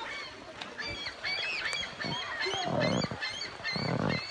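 Birds calling: many short, high chirps repeating throughout, with two louder, lower calls about three and four seconds in.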